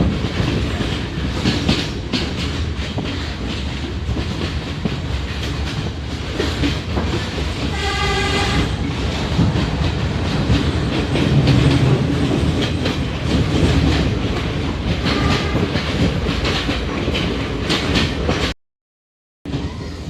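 Passenger train running, heard from on board: a steady rumble with the clickety-clack of wheels over the rail joints. A short horn blast sounds about eight seconds in, and the sound cuts out for under a second near the end.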